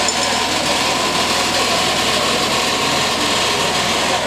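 Power generator running with a steady, even drone.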